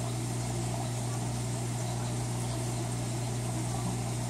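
Aquarium pump humming steadily: one low, even hum that does not change.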